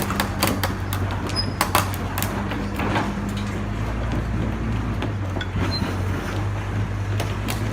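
Large diesel engine of a crawler bulldozer running steadily, with sharp metallic clanks and knocks, most of them in the first three seconds.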